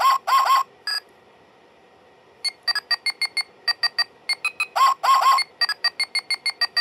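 Electronic toy mobile phone sounding off. It gives a couple of trilling ring pulses at the start and a single beep about a second in. After a short pause it plays a fast tune of short electronic beeps from about two and a half seconds on.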